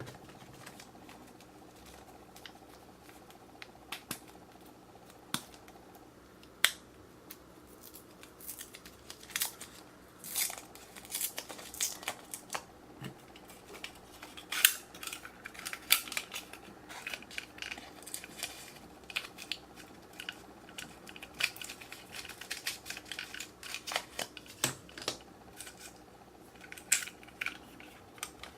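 Hands handling small plastic craft items: a few light clicks and taps, then from about a quarter of the way in a busy run of clicking, tapping and crinkling.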